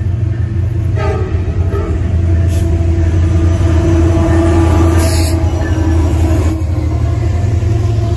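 Norfolk Southern diesel locomotive passing close with its engine rumbling, sounding a long horn blast from about a second in until about six and a half seconds, then freight cars rolling past on the rails.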